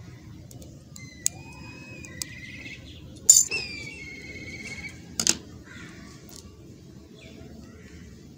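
Scissors snipping, four sharp clicks, the third the loudest. A bird gives two drawn-out whistled calls, each starting right after one of the first and third snips, the second falling slightly in pitch.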